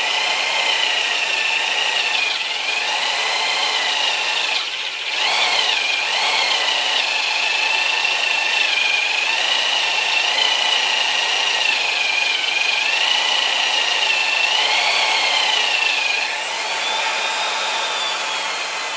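Electric drill driving a Lenox 1 3/4-inch hole saw through a metal CNC end plate, the motor whining steadily as the saw cuts. The pitch wavers up and down as feed pressure changes, with a brief dip about five seconds in.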